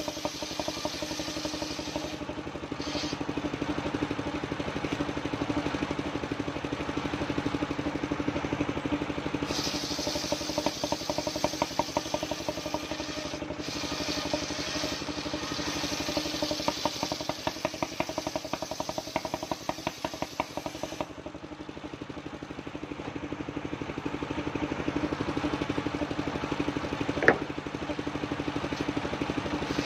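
Engine of a mobile circular sawmill running steadily while the blade saws old coconut wood, with a cutting hiss that comes and goes and is strongest through the middle stretch. One brief squeak near the end.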